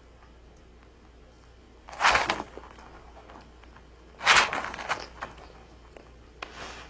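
Bearded dragon lunging and snapping at a grape on a hard tabletop, its claws scraping the surface: two loud scraping strikes about two seconds apart, then a fainter one near the end.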